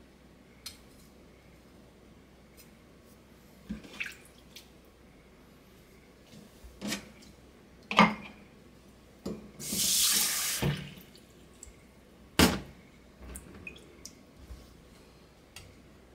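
Water splashed onto a wet whetstone in a rush lasting about a second, in the middle of a run of sharp knocks and clicks as the knife and stone are handled. The loudest knocks come just before and a little after the water.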